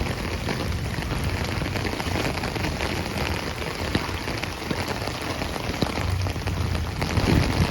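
Rain falling onto floodwater: a steady hiss full of small drop ticks.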